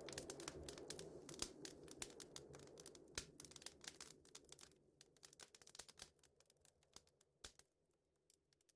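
Faint crackling, scattered sharp clicks over a low hum, fading away to near silence.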